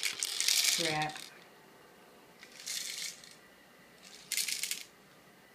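Small objects rattling and rustling as they are shuffled about, in three short bursts: one through the first second, then two more about a second and a half apart.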